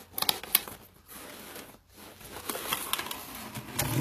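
Cardboard box being opened by hand: a few sharp clicks and taps of card at the start, then rustling of card and paper, with a low thump near the end.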